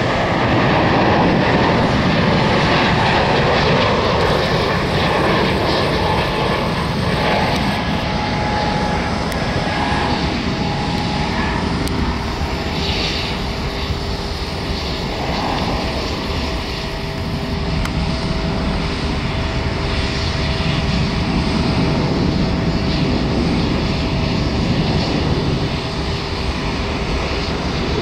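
Jet engines of a Boeing 737 MAX, CFM LEAP-1B turbofans, running at go-around thrust as the airliner climbs away on a missed approach. It is a loud, steady rumble with faint steady whining tones running through it.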